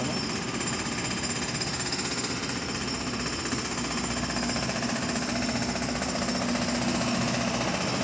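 Steady, rapid mechanical rattling from nearby machinery, with a low hum beneath it.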